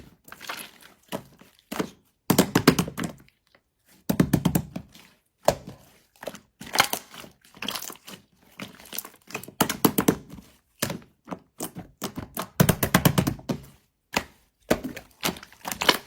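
Slime being squeezed and pressed by hand, giving bursts of crackling pops and clicks about every two seconds.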